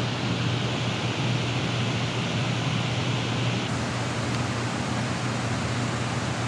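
Steady rushing of water below a dam, with a low steady hum underneath; the higher hiss eases a little just past halfway.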